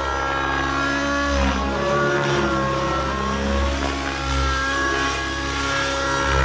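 Glow-fuel (nitro) engine and rotor of an XLPower Specter 700 Nitro RC helicopter running hard in flight, its pitch dipping and rising as the helicopter manoeuvres past.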